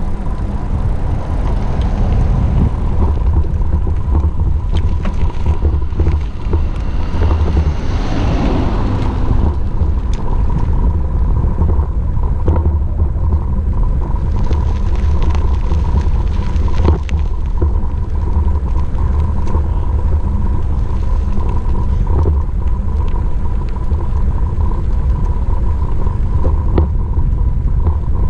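Wind buffeting a GoPro Hero5 Session's microphone while riding, heard as a loud, steady, churning low rumble, with a thin, steady high tone running faintly through it.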